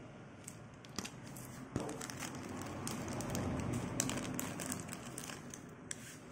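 Thin clear plastic bag crinkling and crackling as a die-cast toy car is pulled out of it, with a few sharp clicks.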